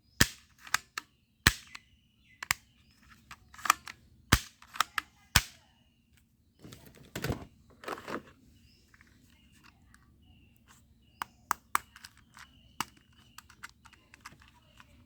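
Sharp plastic clicks and snaps from a toy rifle being handled and worked, coming thick and fast for the first few seconds. About halfway through there is a longer rasping sound, then only faint scattered ticks.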